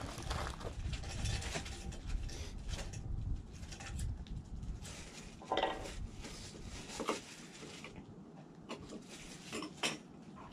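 Light clinks and knocks of metal camp cookware being handled, a small alcohol stove and canteen cups, with a low rumble through the first few seconds.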